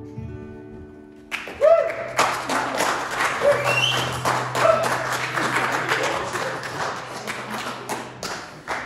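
The last chord of an acoustic folk song dies away, then about a second in a small audience breaks into applause, with a few whoops and cheers mixed in.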